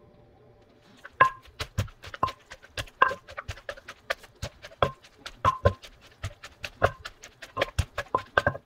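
Wooden pestle pounding shredded green papaya salad in a clay mortar. The quick knocks come about four a second and start about a second in; the harder strikes ring briefly.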